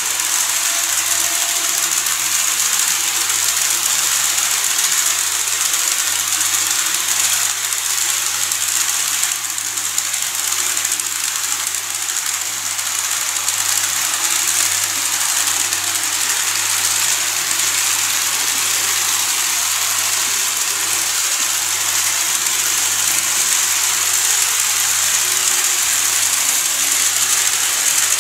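N-scale model trains running on the layout's track: a steady, high whirring hiss from the small motors and the wheels on the rails, with a low steady hum underneath.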